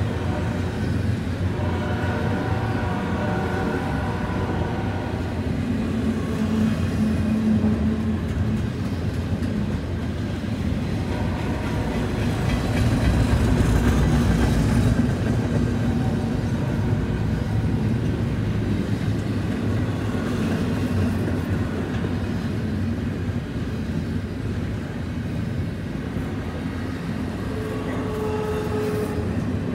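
Double-stack intermodal freight cars rolling slowly past on a curve: a steady rumble of steel wheels on the rails. High-pitched wheel squeal on the curve comes and goes during the first few seconds and again briefly near the end.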